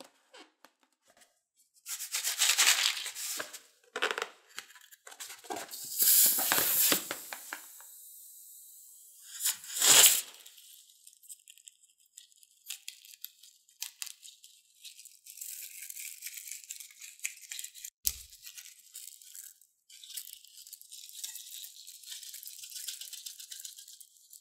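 A slime-filled rubber balloon being handled, snipped open with small scissors and peeled away from the slime, with tearing and rubbing of the rubber. Loud noisy bursts come in the first half and a steadier rustle in the second.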